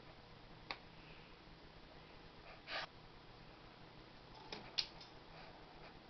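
A few scattered small clicks and taps from an African grey parrot in its wire cage, the sharpest about three-quarters of the way through, and one short soft hiss-like sound near the middle; otherwise quiet.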